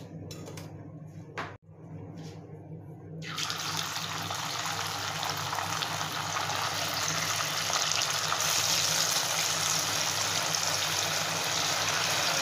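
Marinated chicken 65 pieces dropped into hot coconut oil in a kadai and deep-frying with a steady sizzle, which starts suddenly about three seconds in and gets a little louder and brighter as more pieces go in.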